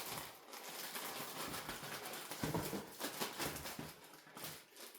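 Rustling and light tapping of kit packaging being handled: plastic bags and cardboard as parts are taken out of the box, in an irregular run of small crinkles and clicks.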